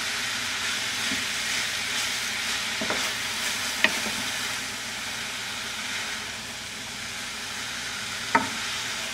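Spaghetti squash and vegetables sizzling gently in a hot pan while a wooden spoon stirs and tosses them. The spoon knocks lightly against the pan a few times, about three and four seconds in and again near the end.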